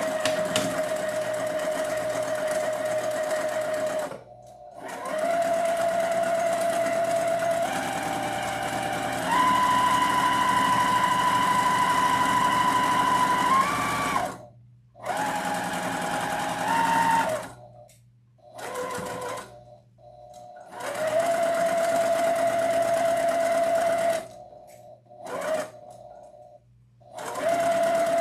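Electric home sewing machine stitching through layers of felt. It runs in about six spells of a few seconds each, with short stops between them, and its motor whine steps up and down in pitch as the sewing speed changes.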